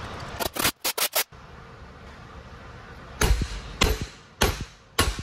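Hammer blows on a steel driver tube, about one every 0.6 seconds, driving the tapered roller bearing down onto the output shaft of an Eaton Fuller 13-speed transmission's auxiliary section. A quick run of sharp knocks comes first, about half a second to a second in.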